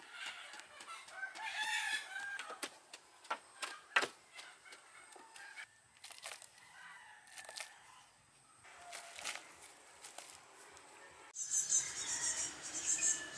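A rooster crowing about a second in, among clucking chickens, with scattered scrapes and knocks of hands scooping loose soil into a bamboo basket. Near the end the sound changes suddenly to a high, steady chirring of insects.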